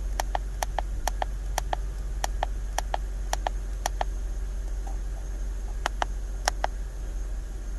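Button clicks on a handheld OBD code reader as it is scrolled through stored fault codes: a run of sharp, irregular clicks a few tenths of a second apart, sparser in the second half, over a low steady hum.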